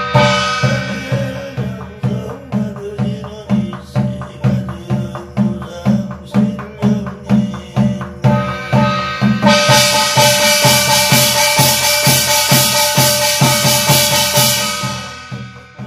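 Korean barrel drum (buk) beaten with a stick in a steady rhythm of about two strokes a second, accompanying a shaman's gosa sutra reading. Over it a brass gong rings, briefly at the start and densely for most of the second half, dying away near the end.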